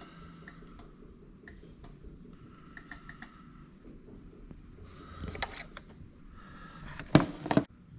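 Tools and parts being handled on an ATV under repair: faint scattered clicks, a short rustle about five seconds in, then two sharp metallic clatters about seven seconds in.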